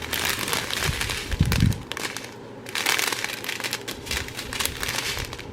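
Small plastic bags of diamond painting drills being handled, the plastic crinkling and crackling, with a brief low thump about one and a half seconds in.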